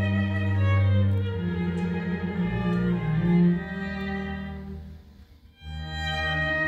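Solo violin with a small string orchestra playing long sustained notes, the low strings strong underneath. About five seconds in the music stops for a brief pause, then the whole ensemble comes back in together.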